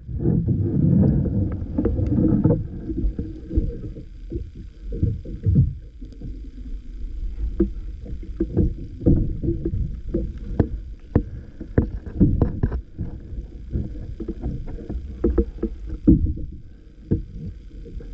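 Muffled underwater water noise picked up by a camera held below the surface: a low rumbling slosh with irregular knocks and clicks, heaviest for the first couple of seconds.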